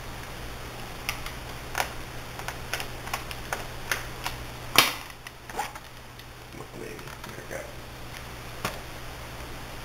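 Irregular small clicks and taps of the laptop's plastic casing and small parts being handled, with one louder knock about five seconds in, over a steady electrical hum.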